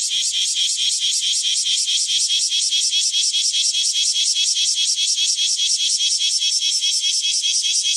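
Japanese cicada (semi) singing: a loud, high, buzzing call that pulses fast and evenly without a break. It is a male's mating call.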